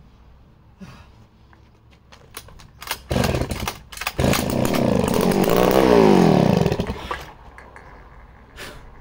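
Vintage Echo CS-60S two-stroke chainsaw being pull-started. A few starter pulls click, then the engine catches about three seconds in and runs loudly for about four seconds, its speed rising and falling, before it stops. It starts and runs, so it is a runner and not the dead saw it was returned as.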